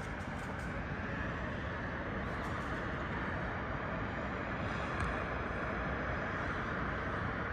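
Steady hum of distant city traffic heard from high up among apartment towers, with a few faint ticks.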